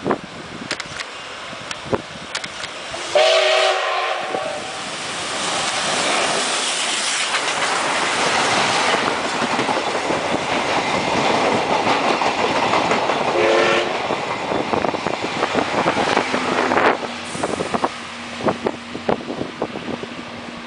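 The D51 steam locomotive's whistle sounds a loud blast about three seconds in, then the locomotive and its passenger coaches run past at speed with a rushing clatter of wheels over rail joints. A second, short whistle blast comes about thirteen seconds in, and a low steady hum is left as the train draws away.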